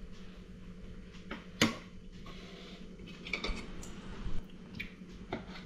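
Metal spoon and fork clinking and scraping against a ceramic plate while eating, a few separate sharp clinks with the loudest about a second and a half in.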